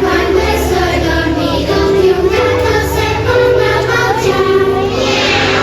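A group of young children singing a song together over an accompaniment with a bass line.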